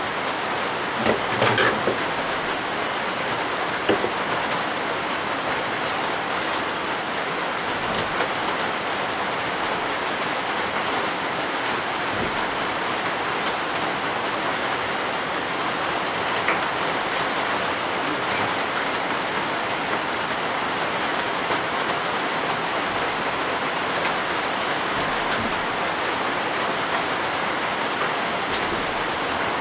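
Steady rain on the roof, an even hiss, with a few light clicks of metal tools being handled in the first few seconds.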